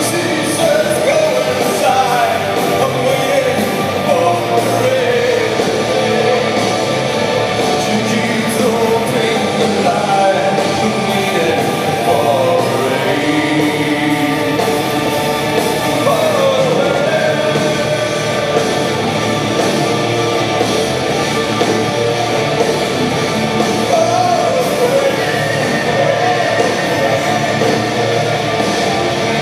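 Live gothic rock band playing at full volume: distorted electric guitars, bass and drums under a male lead vocal, heard through a concert PA.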